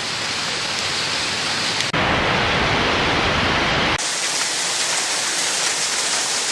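Steady, dense hiss of a hailstorm pouring down, in three stretches that change abruptly about two and four seconds in.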